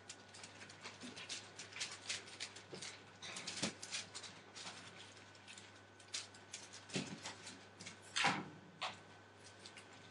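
Entlebucher Mountain Dog puppies, 37 days old, walking and scrabbling over newspaper spread on the floor: a run of small rustles and claw clicks, with one louder sound about eight seconds in.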